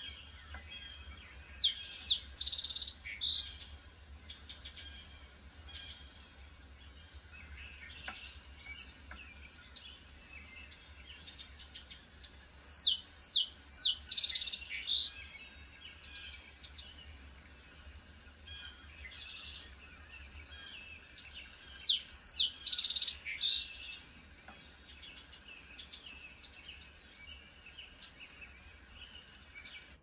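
Song sparrow singing three songs, about ten seconds apart, each a couple of seconds long and opening with a few sharp repeated notes before a denser run, with faint chirps in between.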